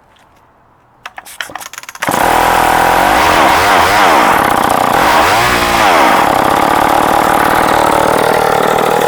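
A vintage Sears 3.7 cubic-inch two-stroke chainsaw starts: a few clicks of handling, then the engine catches about two seconds in and runs loud. It revs up and down twice, then holds at high speed.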